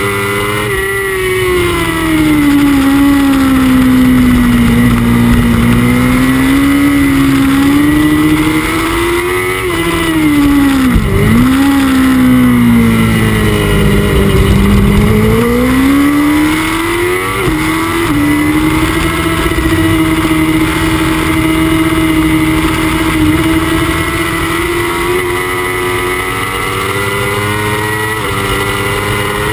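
Honda CBR1000RR superbike's inline-four engine heard onboard at racing speed, its pitch sinking and rising with throttle and gear. About eleven seconds in the pitch drops steeply and dips briefly, then climbs again for several seconds before levelling off at a steady high pitch.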